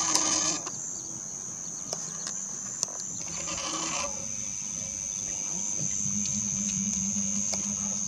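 Steady high-pitched chirring of insects. Two brief rushes of noise come at the start and again about three and a half seconds in, and a low hum joins near the end.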